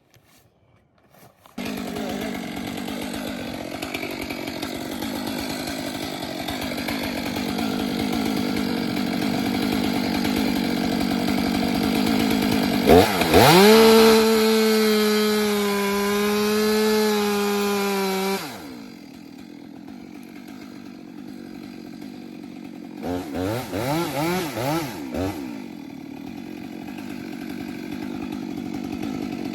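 Chainsaw engine comes in about a second and a half in and runs at idle. About thirteen seconds in it goes to full throttle for some five seconds, then drops back to idle. Later it gives a few quick throttle blips before settling to idle again.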